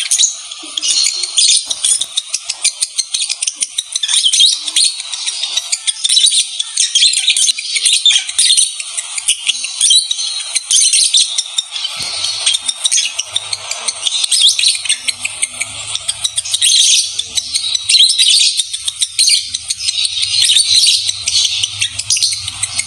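Lovebirds chattering continuously in a fast, high-pitched stream of chirps and squeaks, the chatter of birds in breeding condition.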